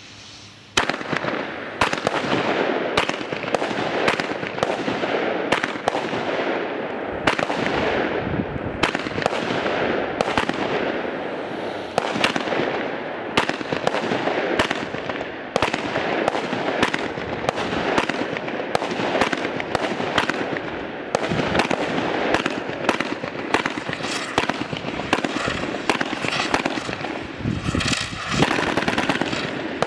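Weco 'Grand Slam' firework battery firing. It starts suddenly about a second in, and shots launch and burst in quick succession, roughly one or two a second, with crackling stars between the bangs.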